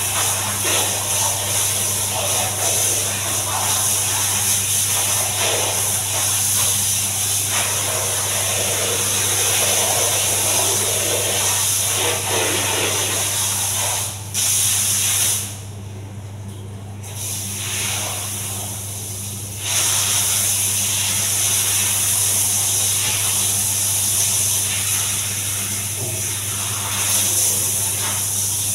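Handheld bidet sprayer hissing as it sprays water onto a wet tiled floor, with a string mop swishing over the tiles. The spray stops for a few seconds around the middle, then comes back on.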